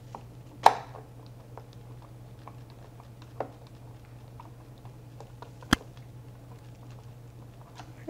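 Hand screwdriver driving small screws into a smart lock's metal mounting plate: faint scrapes and ticks with a few sharp clicks, the loudest under a second in and again near six seconds in.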